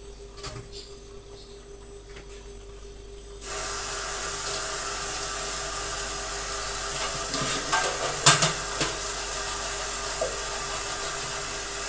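A metal lid clinks onto a wok. About three and a half seconds in, a steady hiss starts suddenly from the covered pan of simmering sauce, with a few sharp metallic clicks a few seconds later.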